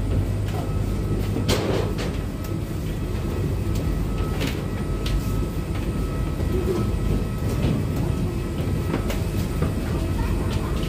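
Steady low rumble inside an airliner's passenger cabin, with scattered light clicks and knocks on top.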